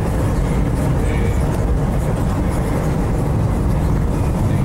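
Steady road and engine noise of a moving vehicle, heard from inside its cabin.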